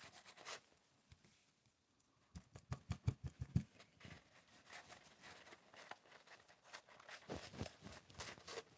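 Paintbrush bristles scrubbing and dabbing paint into the cracks of a papier-mâché surface: faint, scratchy strokes in quick runs, one about two and a half seconds in and another near the end.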